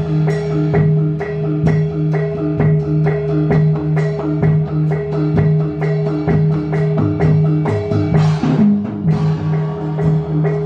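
Javanese doger dance accompaniment: tuned percussion repeats a short, steady pattern of struck notes over a sustained low ringing tone, with drum strokes. A brief noisy swell comes a little past eight seconds in.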